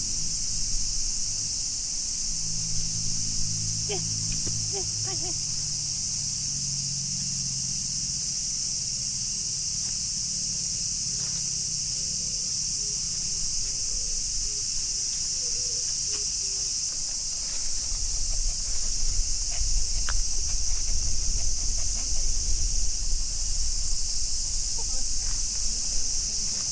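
A loud, steady chorus of cicadas buzzing. About two-thirds of the way in, wind starts buffeting the microphone with an uneven low rumble.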